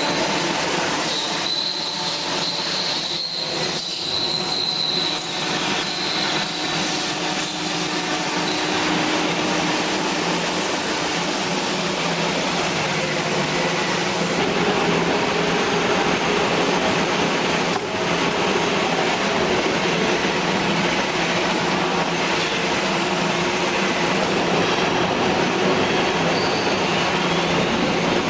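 CNC wood router's spindle running while its bit cuts wood: a loud, steady whine and cutting noise, with a high tone in the first few seconds.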